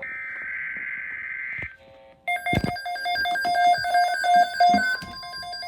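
A weather radio's SAME alert header, a screeching digital data burst lasting under two seconds. After a short gap, the radio's electronic alert alarm starts, a chord of high steady tones beeping on and off.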